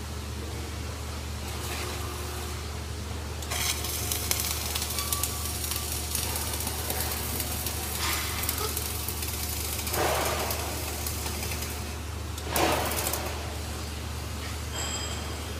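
Flux-cored arc welding: the arc crackles and sizzles steadily, starting a few seconds in and stopping near the end, with two brief louder flares. A steady low hum runs underneath.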